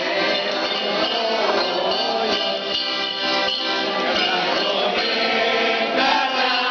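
A mixed group of men and women singing a traditional Spanish 'mayo' song together, accompanied by an accordion.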